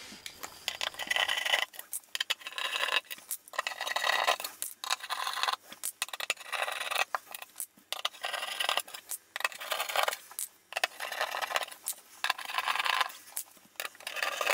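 Screwdriver turning Pozidriv screws out of an aluminium case lid: metal scraping and clicking in repeated short bursts, about one a second.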